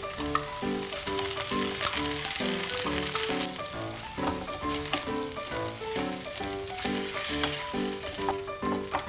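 Chopped onions and corned beef sizzling in a nonstick frying pan while a wooden spatula stirs them with light scrapes and taps; the sizzle is loudest about two to three seconds in. Light background music with a steady beat plays under it.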